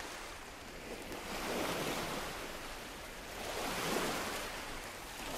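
Sea waves washing onto a sandy beach, swelling twice and falling back.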